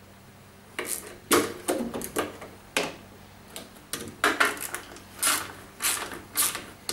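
Hand socket ratchet clicking in short, irregular runs, starting about a second in, as the bolts of a washing machine's concrete counterweight are tightened by hand.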